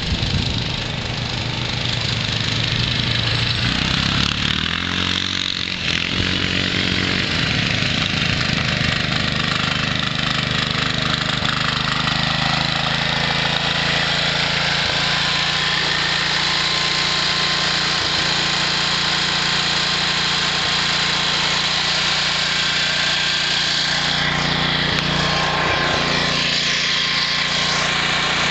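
John Deere garden tractor engine running steadily. Its note shifts in the first few seconds, then holds an even pitch.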